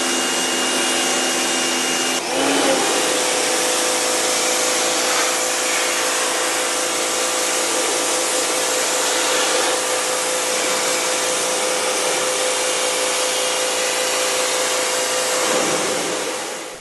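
Harbor Freight Portland 1750 PSI electric pressure washer running, a steady motor whine over the hiss of the spray. The pitch of the whine shifts about two seconds in, and the sound fades out at the end.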